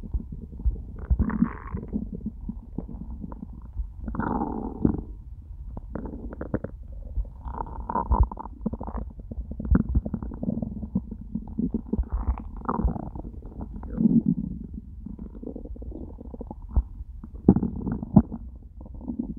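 A human stomach growling on an empty stomach after a whole day without food: an irregular run of gurgles and squeaky rumbles, broken by short clicks.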